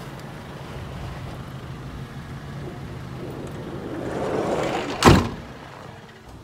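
Steady low drone of a car heard from inside it; about five seconds in, a swelling rush and then a single loud thud of a car door shutting.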